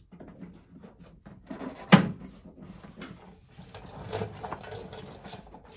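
Outer window seal's metal clips being pressed into the holes of a steel Ford Bronco tailgate by hand: rustling and small clicks, with one sharp knock about two seconds in.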